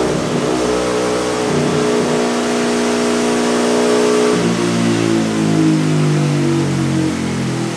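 Yamaha Y15ZR's 150 cc single-cylinder four-stroke engine, fitted with a Red Leo aftermarket exhaust and cam, running under load on a chassis dyno at high, steady revs. About four seconds in its pitch drops sharply and it runs on at lower revs.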